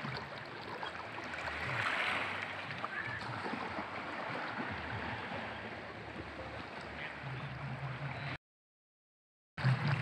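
Small waves of a calm sea lapping and washing against shoreline rocks, a steady watery wash with a faint low hum beneath it. The sound cuts out completely for about a second near the end.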